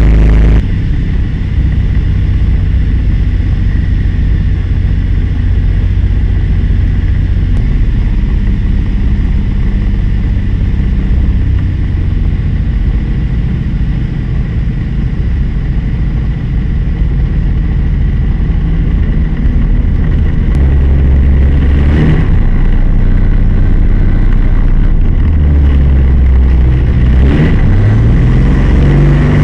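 Rotax 503 two-cylinder two-stroke engine turning a Kool two-blade propeller, running steadily. In the last third the engine speed shifts and rises briefly a few times.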